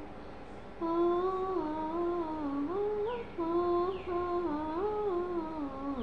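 A person humming a wordless tune in held, stepping notes, starting about a second in.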